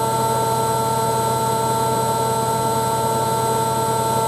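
Hoover Ecologic 1300 washing machine running, its inverter-driven motor giving a steady electronic buzz made of several high whining tones over the hum of the turning drum.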